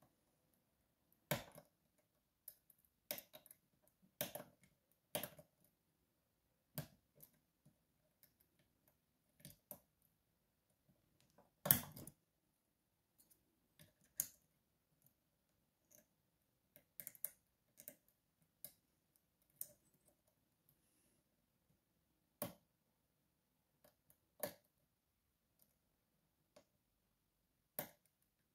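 Scattered, irregular small clicks of a steel pick moving the sliders inside an Evva 3KS high-security cylinder, a second or a few seconds apart, the loudest about twelve seconds in.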